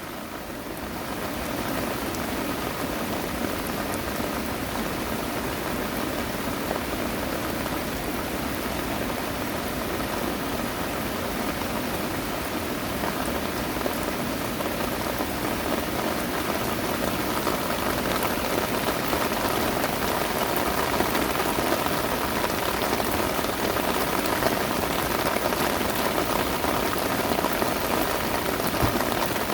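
Heavy rain pouring steadily, a dense hiss and patter of drops striking surfaces. It fades in over the first couple of seconds, then holds, growing slightly heavier in the second half.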